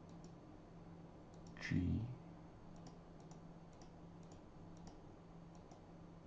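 Computer mouse clicking: a dozen or so light, separate clicks over a steady low electrical hum, with one brief louder low thump about two seconds in.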